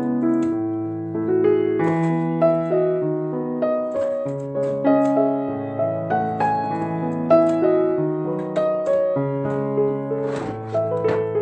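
Background piano music: a slow melody of held notes over sustained lower notes, with a few short clicks about ten seconds in.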